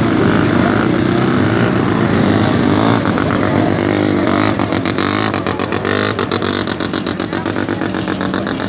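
Vintage two-stroke snowmobiles running as they drive past one after another, the engine pitch gliding as one goes by. About halfway through, a rapid, even popping of engine firing comes in and carries on.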